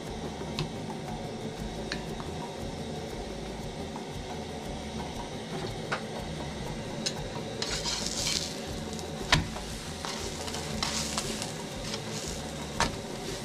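Chapati frying on a flat pan, with butter sizzling in bursts and sharp taps of a metal spatula against the pan. The loudest tap comes about nine seconds in and another near the end.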